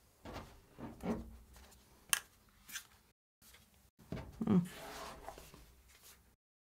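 Soft handling noise of iPads in Magic Keyboard cases being picked up and moved: light rubbing and a few small clicks and knocks, with a brief low murmur about four and a half seconds in.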